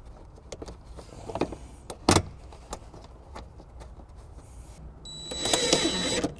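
Small clicks and a sharp knock about two seconds in as a trunk cargo hook is lined up against the trim, then a tool runs for about a second and a half near the end, driving in the hook's 10 mm bolt.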